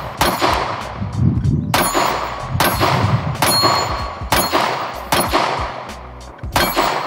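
A Glock 43X 9mm compact pistol fires about seven shots at a slow, steady pace, roughly a second apart. Each shot is followed by the ring of a struck steel target.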